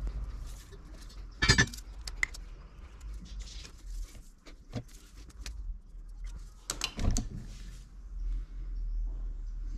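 Steel car coil spring being handled on a metal workbench: scattered metallic clinks and knocks as the coils strike each other and the bench. The loudest knocks come about a second and a half in and again around seven seconds.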